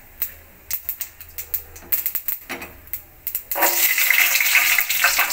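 Mustard seeds popping and crackling in hot sesame oil during tempering. About three and a half seconds in, garlic cloves are dropped into the oil and a loud steady sizzle takes over.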